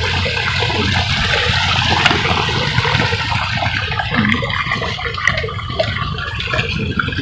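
Small stream rushing steadily down a ditch. The water sound thins out after about four seconds.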